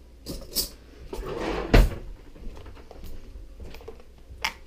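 Metal cutlery rattling in a kitchen drawer as a spoon is picked out, then the drawer shut with a loud thud a little under two seconds in; a couple of light sharp clicks near the end.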